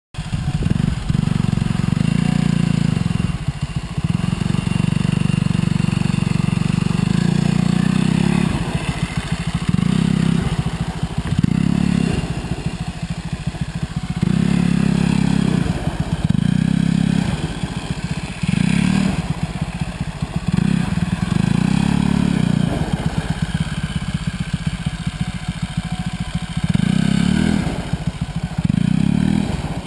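Quad (ATV) engine revving in repeated bursts of throttle, each about one to two seconds, rising and falling as the quad slides and spins doughnuts on dirt.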